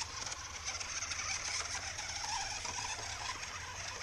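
Small electric motor and gearbox of a toy remote-control four-wheeler running steadily, a low hum with fast fine gear chatter.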